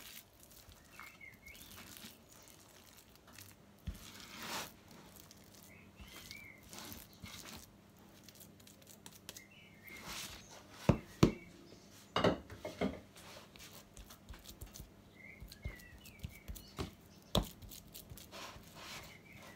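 Hands scooping wet papier-mâché pulp out of a bowl and packing it into a plastic tub: soft handling and scraping noises, with a few sharp knocks of the tub. Near the end a lid is pressed onto the tub.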